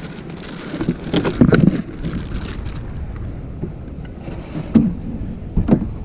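Wind rumbling on the microphone, with a few knocks and bumps of gear being handled in a small fishing boat, the loudest a cluster about a second and a half in.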